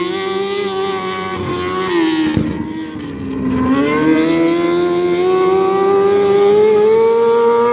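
Restricted micro sprint car's engine running at high revs: the pitch dips between about two and three and a half seconds in as the throttle is eased, then climbs steadily back up.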